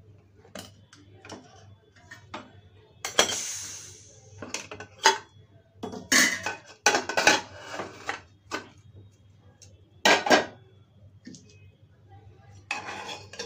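Pressure cooker lid being twisted free and lifted off: a run of metal clanks and scrapes, loudest about six and ten seconds in, with a short hiss that fades out about three seconds in.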